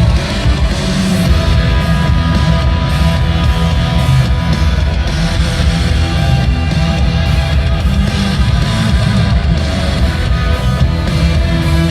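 Loud amplified band music with electric guitars and drums, played steadily without singing.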